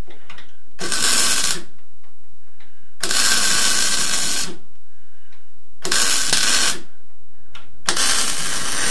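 MIG welding on the steel sill of an Aston Martin DBS V8 body in short runs: four bursts of arc noise, the longest about a second and a half, with pauses of a second or two between them.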